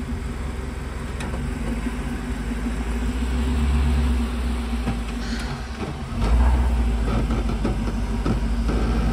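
A vehicle engine running steadily, swelling in level about three to four seconds in, easing off, then stepping up louder about six seconds in and holding there.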